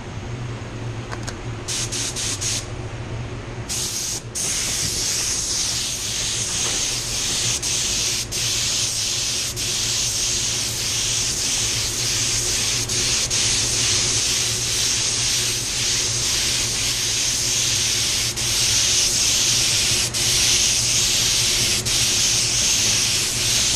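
Compressed air hissing from a mini jet HVLP spray gun spraying a second coat of silver basecoat: a few short test bursts about two seconds in, then continuous spraying with brief breaks between passes. A steady low hum from the spray booth's ventilation runs underneath.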